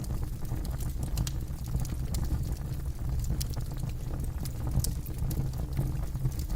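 Campfire burning: a steady low rumble of the fire with irregular sharp crackles and pops from the burning wood, several each second.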